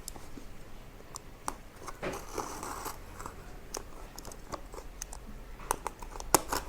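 Packaging being handled and opened by hand: scattered clicks and taps, a rustling, crinkling stretch about two seconds in, and one sharp click near the end.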